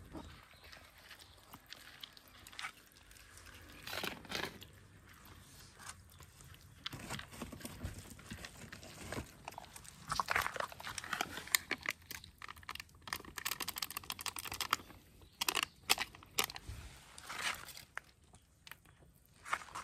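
Cats eating, crunching and chewing their food in irregular bursts of small crunches and clicks.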